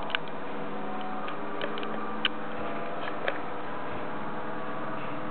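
Steady low hum and hiss, with a handful of short, faint clicks scattered through the first few seconds.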